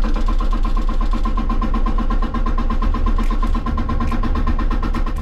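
Hydraulic rock breaker on a Hitachi 160 excavator hammering at rock in a rapid, even rhythm, over the excavator's engine working under load.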